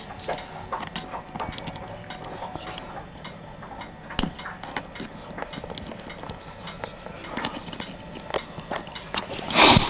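Light, irregular clicks and scrapes of a small screwdriver and fingertips working the metal cover of an electric blanket controller's rotary switch, prying at its tabs. A louder burst of handling noise comes near the end.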